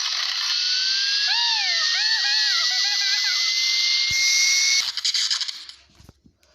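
Loud steady hiss with a thin whine that rises slowly in pitch, cartoon sound effects. A squeaky, high-pitched cartoon voice chatters over it for about two seconds. The hiss stops abruptly a little before the end.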